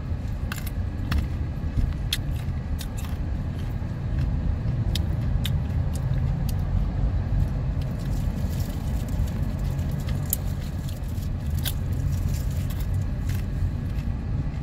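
A steady low car rumble, with scattered short crisp crunches and clicks of teeth biting into and chewing a hard, unripe green mango.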